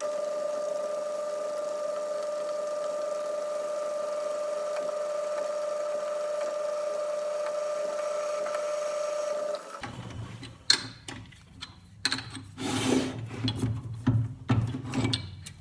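1936 Atlas 12-inch metal lathe running with a steady whine while a centre hole is drilled into steel stock from the tailstock. The whine cuts off suddenly just under ten seconds in, followed by clicks and knocks of the tailstock drill chuck being handled.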